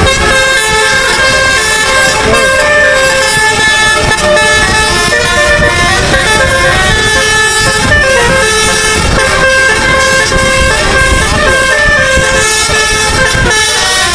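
A bus's telolet musical air horn playing a tune: loud held notes, several at once, stepping from note to note, over a low rumble.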